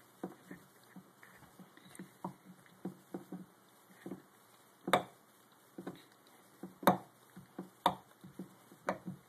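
Norwegian Elkhound chewing and gnawing on his Kong toy: irregular small clicks and knocks of teeth on the toy, with a few sharper, louder knocks from about five seconds in.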